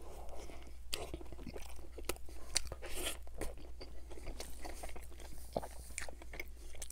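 Close-up chewing of a bite of a Whopper burger: crunching and many small wet mouth clicks.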